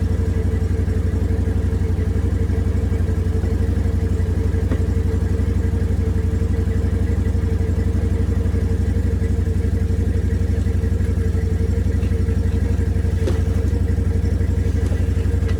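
ATV engine idling steadily, with a couple of sharp knocks late on.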